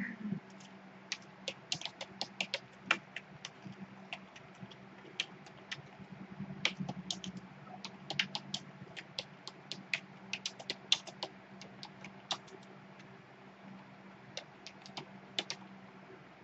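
Typing on a computer keyboard: irregular runs of keystroke clicks with short pauses, over a steady low hum.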